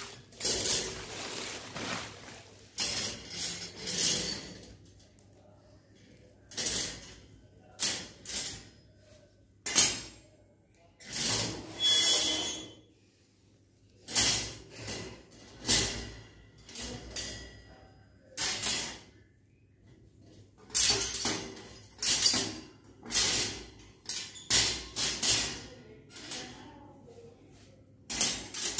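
Iron wire plant-stand frames being handled and set down on a marble floor: irregular clanks, knocks and scrapes of metal on stone, one with a brief ring, between quiet gaps. Plastic wrapping crinkles in the first seconds.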